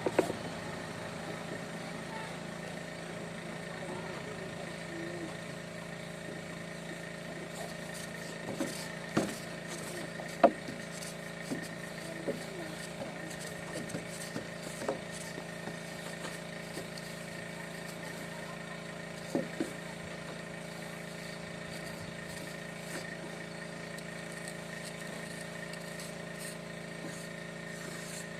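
A steady engine hum, with scattered short clicks and knocks over it; the loudest knock comes about ten seconds in.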